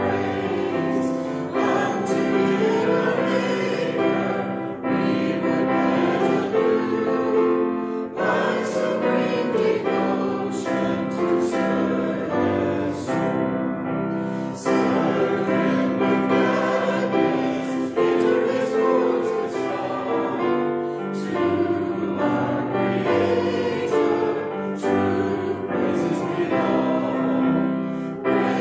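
Church choir and congregation singing a hymn together.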